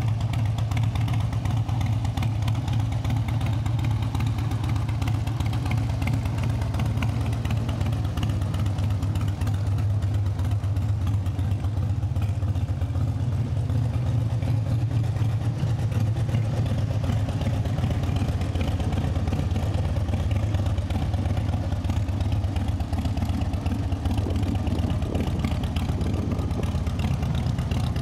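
2005 Harley-Davidson Dyna Wide Glide's Twin Cam 88 V-twin idling steadily through Screamin' Eagle II exhaust pipes.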